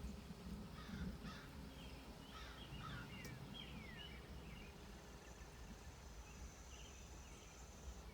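Faint bird chirps: short notes falling in pitch, several a second, over a low rumble that fades after the first few seconds. A thin, steady high tone joins about five seconds in.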